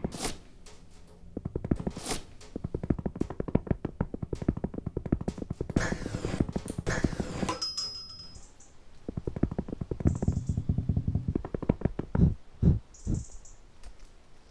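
Home-made cartoon sound effects: fast runs of tapping, about eight to ten taps a second, broken by a pause near the middle, then a few heavier thuds near the end.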